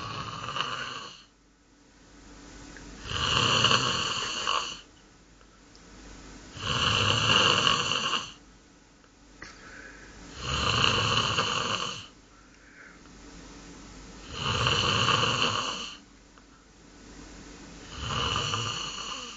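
A goose making loud, rasping, snore-like sounds in a steady rhythm, about one every four seconds, each lasting one and a half to two seconds. A quieter sound rises between them.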